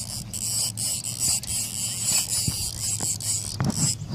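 Fishing reel being cranked to bring in a fish, a steady high whir with a few sharp ticks.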